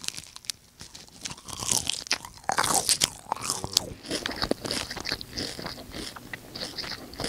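Crispy fried food being bitten and chewed right at a handheld microphone: a run of sharp, irregular crunches, loudest about halfway through.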